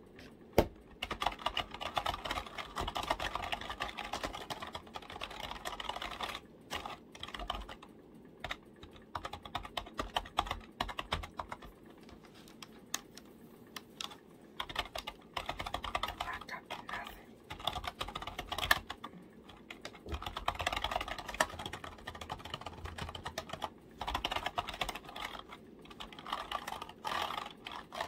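Keyboard keys tapped rapidly in runs of clicking keystrokes, with short pauses between the runs.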